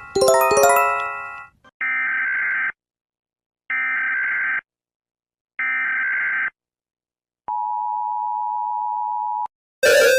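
An electronic chime rings out and fades. Then come three one-second bursts of Emergency Alert System SAME header data tones, a harsh buzzing screech with pauses between them, followed by a steady EAS attention tone held for about two seconds. Near the end a new, loud alarm of pulsing beeps begins.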